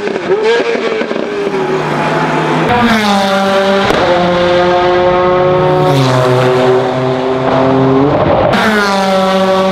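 GT-class racing car engines at full throttle. After an abrupt change about three seconds in, a car accelerates hard through the gears: a rising engine note broken by quick upshifts about every two seconds.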